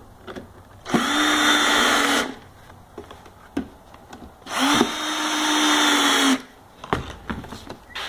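Cordless drill-driver running in two bursts of about one and a half and two seconds, driving screws into the wooden birdhouse, with a few light knocks between the bursts.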